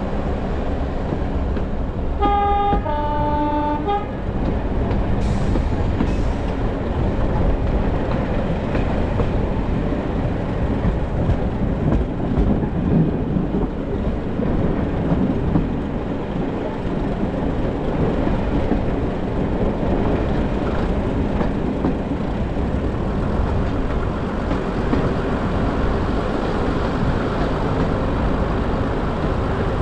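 Diesel train's two-tone horn sounds about two seconds in, a short higher note then a longer lower one, over the steady running noise of the train on the rails.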